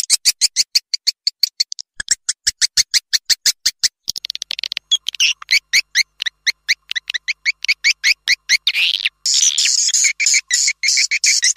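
Swiftlet lure call: a recorded track of swiftlet chirps played back to call swiftlets to a nesting house. A rapid, even string of short high chirps, about six a second, some of them falling in pitch through the middle.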